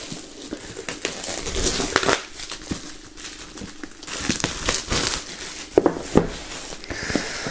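Clear plastic shrink-wrap being peeled off a boxed CD set and crumpled: a continuous run of irregular crinkles and crackles, with a couple of light knocks near the end as the box is handled.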